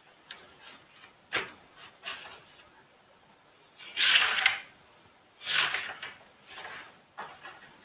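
Writing on a board: short scratchy strokes and taps, with the two longest strokes about four and five and a half seconds in.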